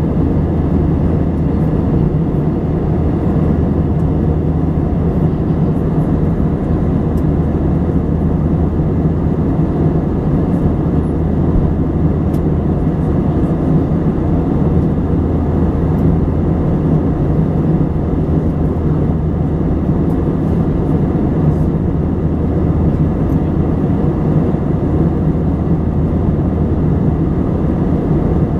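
Steady cabin drone of an Airbus A320 in cruise flight, heard from inside the cabin: an even, deep rumble of engine and airflow noise that holds without change.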